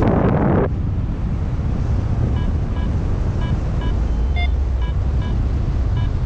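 Wind buffeting a GoPro microphone in paragliding flight, with a louder gust at the start. From about two seconds in, a paragliding variometer beeps in short, evenly pitched tones, roughly two to three a second: the vario's climb signal.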